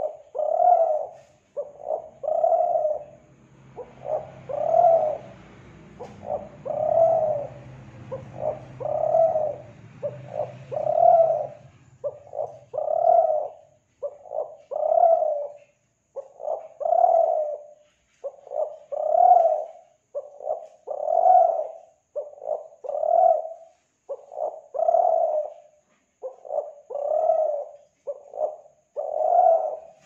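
Spotted dove cooing over and over, a long coo about every two seconds with short coos between them.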